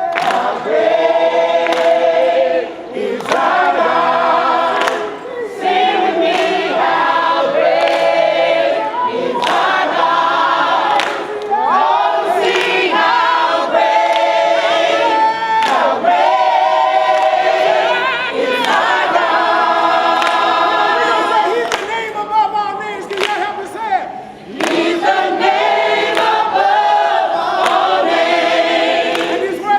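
Church congregation singing a hymn together, many voices in long sung phrases with brief breaks between lines.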